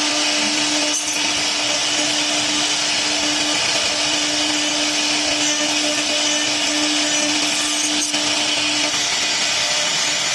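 3-axis CNC router spindle running steadily and cutting wood for a cabinet door. A constant hum with one steady pitch sits under an even, hissing cutting noise.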